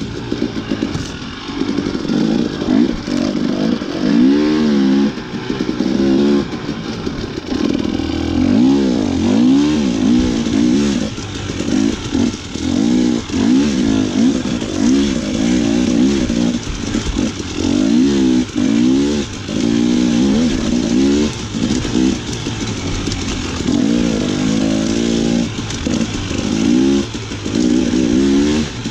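Dirt bike engine revving up and down over and over, its pitch rising and falling about once a second as the throttle is opened and closed.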